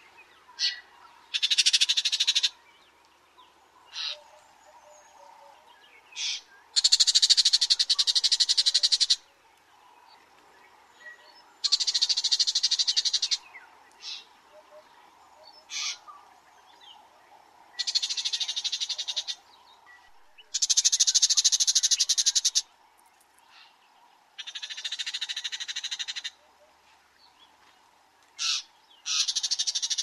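Souza's shrike calling: harsh, rapid rattling phrases of one to two seconds, repeated every few seconds, with short single sharp notes in between.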